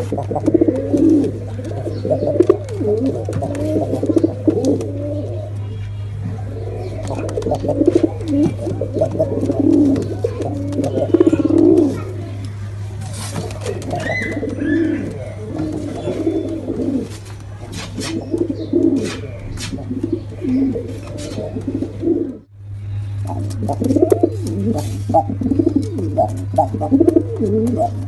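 Several pigeons cooing, their calls overlapping with hardly a pause, over a steady low hum. The sound drops out briefly about twenty-two seconds in, then the cooing resumes.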